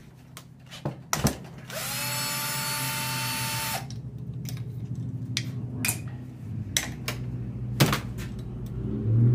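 Cordless drill/driver backing out a screw from a small-engine's low-oil safety switch: one run of about two seconds, the motor whine rising briefly as it spins up and then holding steady until it stops. A few light clicks and knocks follow as small parts and tools are handled.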